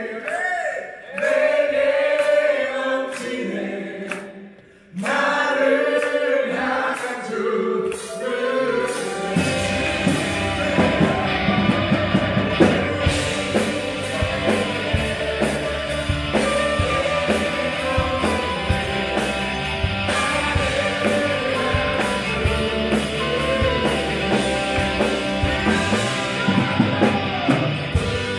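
Church praise band playing a worship song with voices singing over a Fender Stratocaster electric guitar. Bass and drums come in about nine seconds in and the full band carries on.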